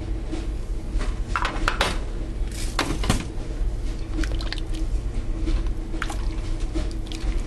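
Wooden spoon stirring thick, creamy clam chowder in a stainless steel pot: wet squishing of the soup, with a few light knocks of the spoon against the pot between about one and three seconds in.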